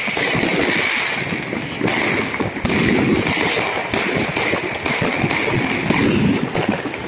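Many fireworks going off at once: a dense, continuous barrage of sharp bangs and crackling over a steady hiss.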